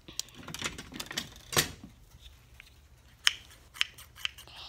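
Scissors snipping: a run of sharp clicks of the blades closing, the loudest about a second and a half in, then three more about half a second apart near the end.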